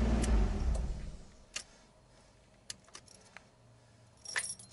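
A car engine running and then shutting off, dying away over about the first second. A few light clicks follow, then a jangle of keys near the end, as with an ignition key being turned off and pulled out.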